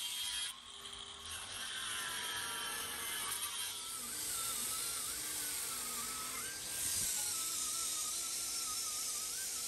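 A small power tool running with a whine that wavers in pitch and steps up higher about two-thirds of the way through.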